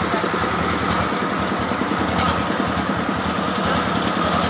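Stihl 070 two-stroke chainsaw engine running steadily at a constant speed.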